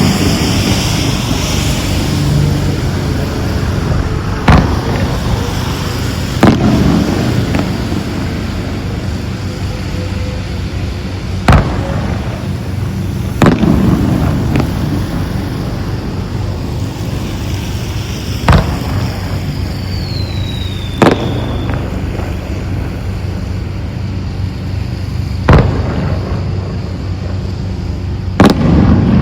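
Aerial firework shells bursting, about eight sharp booms a few seconds apart, each followed by a short rumbling echo, over a steady low background hum. A short falling whistle comes just before one of the bursts, about two-thirds of the way through.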